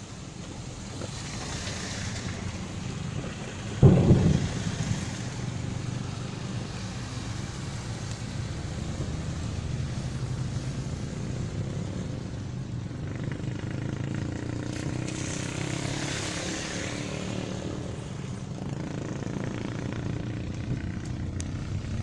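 Steady engine and road hum from inside a moving car, with one loud thump about four seconds in. Two rushing swells of noise come and go, one near the start and one about two thirds of the way through.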